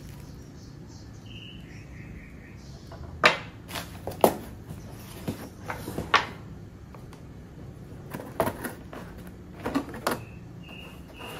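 Hard objects being handled, with about ten sharp clicks and knocks spread through the middle and a few faint high chirps near the start and end.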